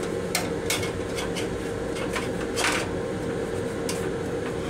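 Toilet paper being pulled from a railcar restroom's dispenser: a series of short crisp paper sounds, with a longer one about two and a half seconds in. Underneath runs the steady hum of the moving train car, with one held tone.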